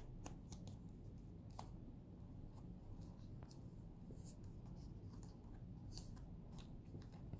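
Scattered faint clicks and taps of fingers handling the plastic parts of an S.H.Figuarts action figure, over a steady low background hum.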